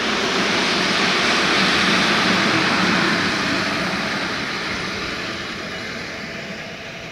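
STK's Newag Dragon (E6ACT-003) electric locomotive passing on the track, a steady rushing running noise that swells to its loudest about two seconds in and then fades as it moves away.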